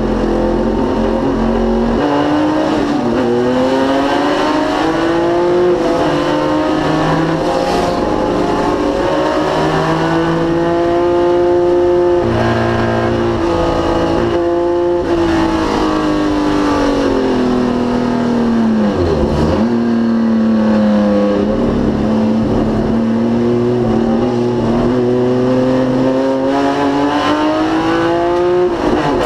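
A 1973 BMW CSL race car's straight-six engine running hard at racing speed. Its pitch climbs and drops again and again through gear changes, with a deeper dip about two-thirds of the way through.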